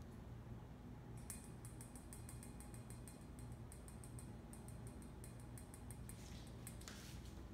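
Faint, rapid light ticking and clicking from a cat playing on a wooden floor. It starts about a second in and stops near the end, over a steady low hum.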